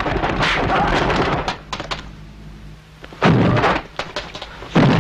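Dubbed kung fu film fight effects: a rapid flurry of swishing strokes during a leap, then after a short lull two heavy thuds about a second and a half apart.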